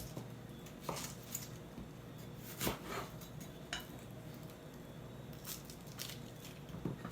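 A knife knocking lightly on a cutting board now and then as vegetables are cut, a few scattered knocks with the clearest a little under three seconds in.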